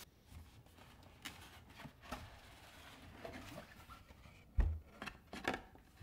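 Cardboard box being opened by hand: faint rubbing and scraping of the cardboard flaps, with a low thump about three-quarters of the way in and a couple of brushing sounds just after it.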